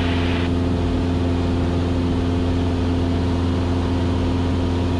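Cessna 172S's four-cylinder Lycoming engine and propeller running steadily at cruise power, heard inside the cabin as an even drone, with a short hiss at the very start. The engine is newly installed and being run at a high break-in power setting.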